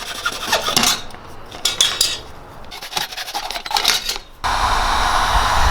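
Metal tools clinking and rattling as they are handled. About four and a half seconds in, a heat gun switches on suddenly and runs steadily, used to soften PVC pipe for bending.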